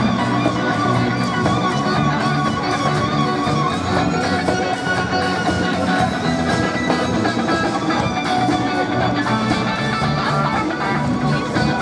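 Live rock band playing: electric guitar with a drum kit and cymbals.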